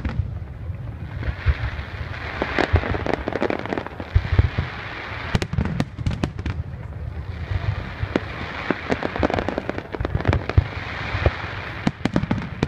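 Fireworks display: aerial shells bursting in quick, irregular succession, a mix of sharp cracks and deep booms.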